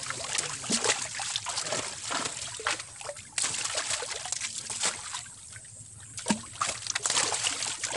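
Fish thrashing in shallow water trapped inside a fine-mesh net, with irregular splashes and sloshing as the net is gathered by hand.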